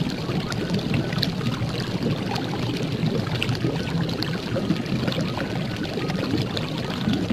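Sizzling sound effect like food frying in a pan: a steady hiss with many small sharp crackles.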